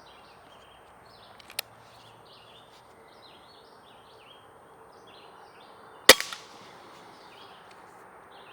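A single sharp shot from a .22 Umarex Notos air rifle about six seconds in, with a brief tail after it. A small click comes about a second and a half in.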